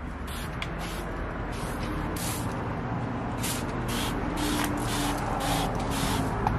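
Insecticide sprayer spraying in a string of short bursts, about two a second, over a steady hum of road traffic.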